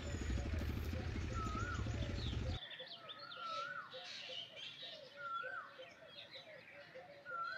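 Birds singing: one bird repeats a short whistled phrase about every two seconds over busier, higher chirping from others. A low rumble is loudest under the first two and a half seconds and then cuts off suddenly.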